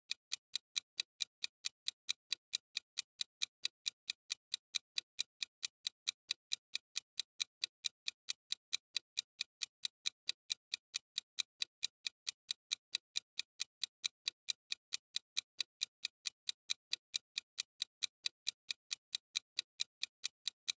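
Countdown-timer ticking sound effect: quiet, even, clock-like ticks, about four a second.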